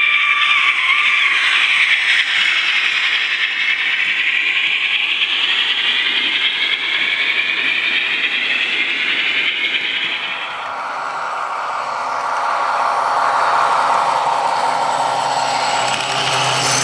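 Model railway steam train with its carriages running past, its wheels rattling over the track. About two-thirds of the way through, the higher rasping sound fades and a lower, steadier running sound carries on.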